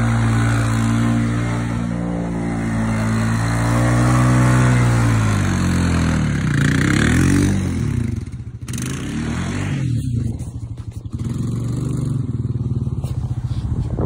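ATV engine running under a plow blade: steady at first, revving up about four seconds in, then falling back to a slow, pulsing idle for a few seconds before it picks up again.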